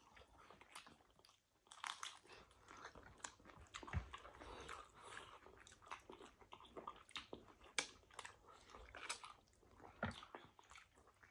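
Two people chewing and biting into noodles and chicken, eating with their hands: soft, irregular mouth noises with many small crunchy clicks.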